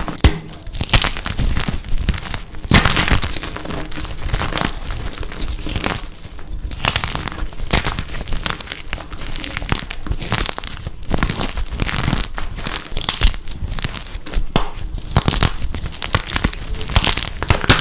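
Blocks of dyed gym chalk being crushed, a dense, irregular run of crunches and crumbling crackles.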